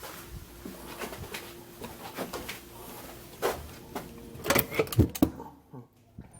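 Scattered clicks and knocks, with a cluster of louder knocks about four and a half to five seconds in, after which it goes much quieter.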